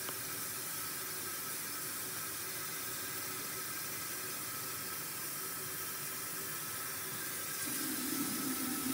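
Water from a sink tap running steadily into a plastic wash basin, filling it.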